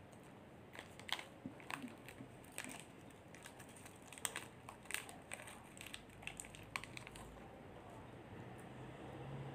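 Small packet crinkling and crackling as it is handled and torn open, a run of irregular sharp crackles over several seconds that dies away near the end.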